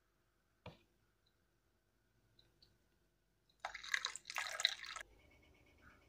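Coffee decoction poured into a glass of hot milk: a splashing pour in two short runs, starting a little past halfway and lasting about a second and a half. One light knock comes before it.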